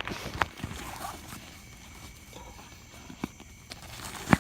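Inflated plastic floaties being handled and stuffed into a cloth pillow sack: a few sharp taps and knocks a second or more apart over soft rustling, the loudest near the end.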